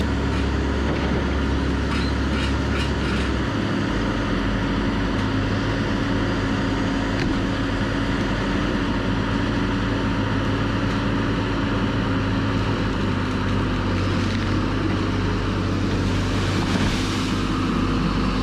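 John Deere tracked feller buncher's diesel engine and hydraulics running steadily under load while its disc saw head cuts and fells a tree, with a rougher, hissier stretch a little past three-quarters of the way through.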